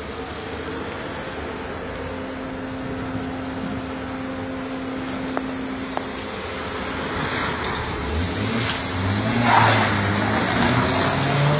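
Street traffic noise with a steady engine hum. About eight seconds in, a car engine accelerates, rising in pitch and getting louder.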